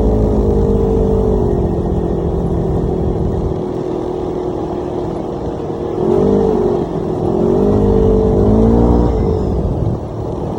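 Side-by-side UTV engine running while driving, its pitch rising and falling with the throttle at the start and again about six seconds in, with a quieter stretch in between.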